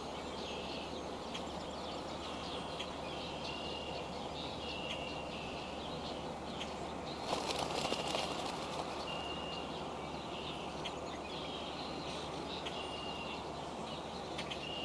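Steady hiss of a rain shower, with a bird repeating a short, high, even note every second or so. About seven seconds in comes a brief, louder burst of noise lasting about a second.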